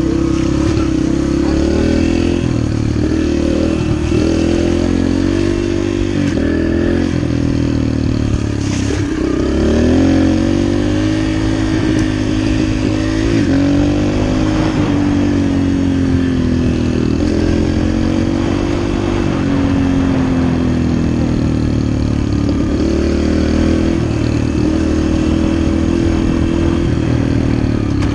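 Yamaha dirt bike's engine running under way, its pitch rising and falling as the throttle is worked, with a brief drop and rev about nine seconds in.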